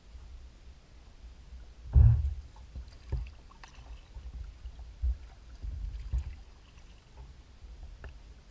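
Low thumps and knocks on a plastic kayak hull as the boat is paddled and moved. The loudest knock comes about two seconds in, followed by smaller thumps and a few light clicks.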